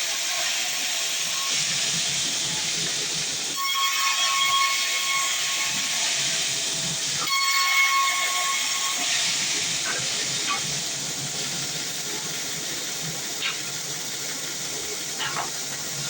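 A band sawmill's blade cutting through a dense log. The blade runs with a steady hiss, and twice a high, ringing whine rises over it, about four seconds in and again at about seven to nine seconds. A few light clicks come near the end.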